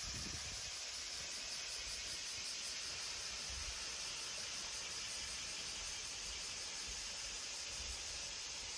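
Steady outdoor riverside ambience: an even hiss, with a little low wind rumble on the microphone, most of it in the first second.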